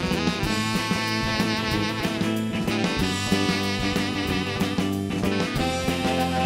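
Rock'n'roll band music: electric guitar over a steady drum beat.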